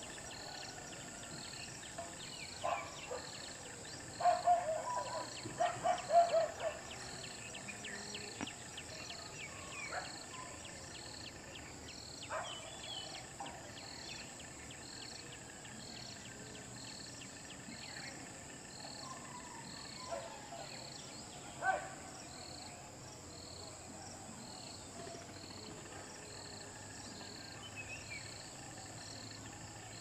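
Steady high-pitched insect drone with a regular chirp repeating a little over once a second, and a few short bird calls, loudest as two quick clusters of notes around 4 to 7 seconds in. Scattered sharp clicks come later, the clearest just before the 22-second mark.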